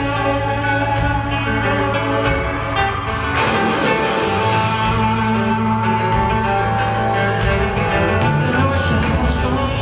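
Live band playing an instrumental passage with electric and acoustic guitars over bass and drums, with no vocals, filmed from the arena audience.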